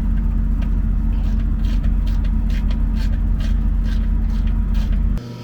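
An engine running steadily with a low hum, with scattered light metallic clicks and clinks over it. The sound cuts off abruptly near the end.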